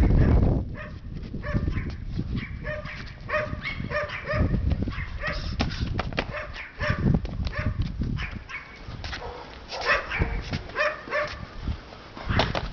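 A dog barking repeatedly in short, evenly spaced yaps, in two runs with a pause between. Wind rumbles on the microphone at first, and scattered sharp knocks run through.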